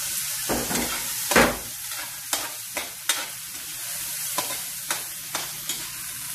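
Oil sizzling in an aluminium wok as onion, garlic and ginger sauté, with a metal spoon clinking and scraping against the wok a dozen or so times as the mixture is stirred; the loudest scrape comes about a second and a half in.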